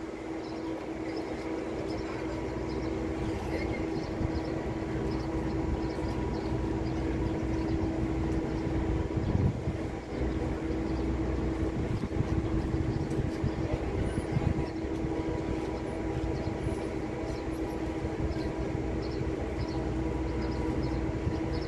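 Steady mechanical hum of a large ship's onboard machinery running: a low rumble under one constant mid-pitched tone.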